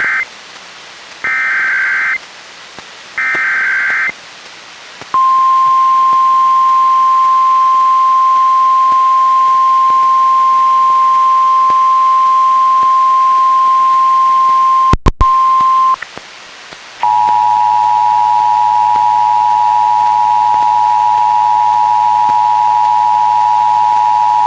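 NOAA Weather Radio Emergency Alert System activation heard through a weather radio. First come the end of one SAME header data burst and then two more, each about a second long and sounding like a harsh buzzy warble. Then a steady single-pitch warning alarm tone sounds for about eleven seconds, cut by a brief dropout near its end, and after a short pause a lower, steady alert tone made of several pitches starts, with a low hum under it.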